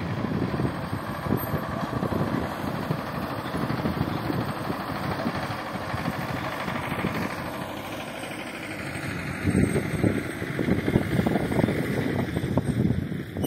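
Front-loader farm tractor's engine running as the tractor drives about, with an uneven low rumble that grows louder in the last few seconds.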